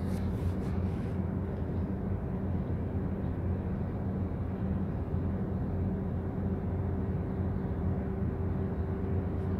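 Container ship's diesel engine heard from shore as a steady low drone with a constant hum.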